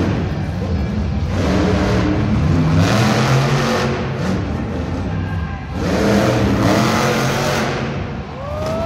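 Monster truck engine revving hard in repeated bursts as the truck is thrown around the dirt arena floor.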